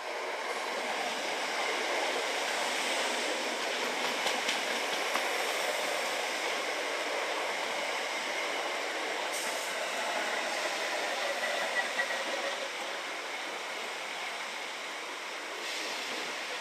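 Greater Anglia Class 321 electric multiple unit running past: a steady rush of wheels on rail, with a few sharp clicks from the wheels over the track.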